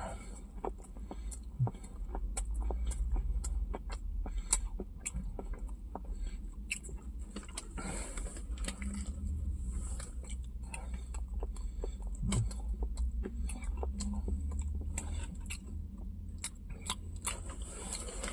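A person biting and chewing a crispy chicken burger with bacon, with many small scattered clicks and crunches over a low steady hum.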